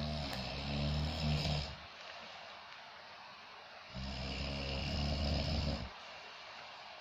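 A man snoring in his sleep: two long snores of about two seconds each, roughly four seconds apart.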